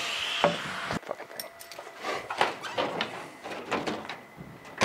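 About a second of steady noise that cuts off suddenly, then a series of irregular light knocks and clunks.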